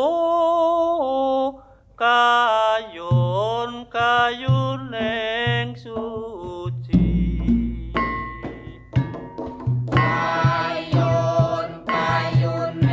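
Music: a voice singing a slow, ornamented chant-like melody with gliding pitch, joined about three seconds in by a steady drum beat.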